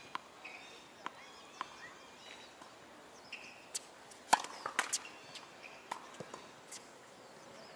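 Tennis ball bounced a few times on a hard court, then a serve struck hard with the racket, a sharp crack about four and a half seconds in that is the loudest sound, followed by a few further ball impacts.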